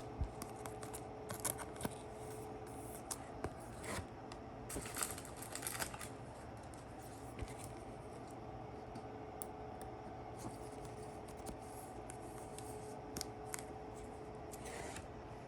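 Trading cards and a plastic card sleeve being handled: intermittent soft rustles and scratches, busiest about four to six seconds in, over a steady faint hum.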